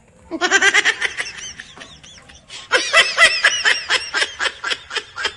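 High-pitched laughter in two quick bouts of rapid 'ha-ha' pulses, a short one at the start and a longer one from about two and a half seconds in.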